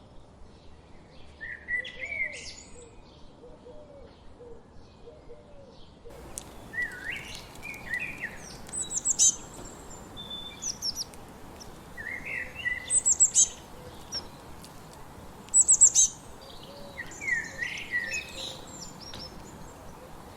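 Songbirds singing: a short phrase of sliding whistled notes with sharp high chirps, repeated every few seconds, over a steady background hiss that gets louder about six seconds in.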